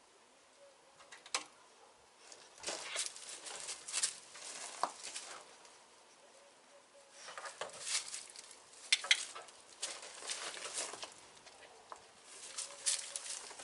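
Bursts of crackly rustling and light scratching, each lasting a few seconds, with short quiet gaps between.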